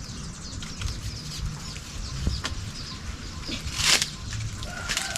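Leafy loquat branches rustling and shaking as they are tugged, with one loud swish of leaves about four seconds in. Short chirps of birds are scattered through it.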